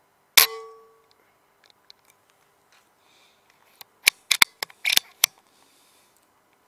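A single rifle shot with a short metallic ring that dies away within about half a second. About four seconds in, a quick run of sharp mechanical clicks, as of the rifle being handled and reloaded.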